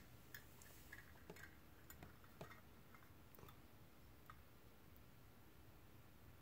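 Near silence: room tone with a few faint, irregular ticks.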